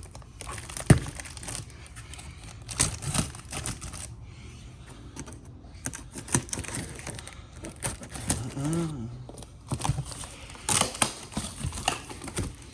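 Cardboard wheel box and its packing being pulled and torn open by hand: irregular crinkling, tearing and scraping, with a sharp knock about a second in.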